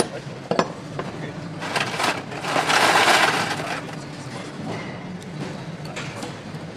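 Engine assembly-line sound: metal parts clink sharply a couple of times, then a loud rushing hiss swells and fades over about two seconds in the middle, over a steady machine hum.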